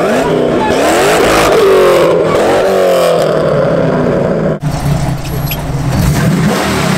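A car engine revving hard as the car pulls away, its pitch climbing for under two seconds and then falling. After a sudden cut about two-thirds of the way through, a different engine runs at a steadier low pitch.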